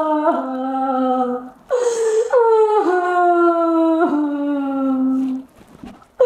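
A young woman wailing in long, drawn-out cries that slide down in pitch, broken by a sharp gasping breath about two seconds in and another near the end.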